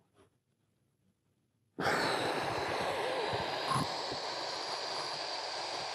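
A long, deep breath drawn as a steady hiss through the mouth during a diaphragmatic breathing exercise, beginning abruptly about two seconds in and held evenly.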